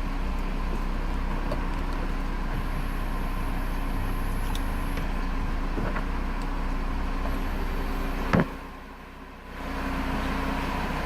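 Audi RS3's turbocharged five-cylinder engine idling steadily after a remote start. A single sharp thump about eight seconds in, after which the sound is briefly quieter before the idle returns.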